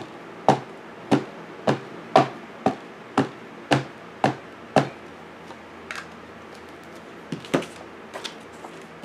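Black archival ink pad tapped repeatedly onto a clear acrylic stamp to ink it up well: about ten sharp taps, roughly two a second, stopping about five seconds in, then a few lighter knocks near the end.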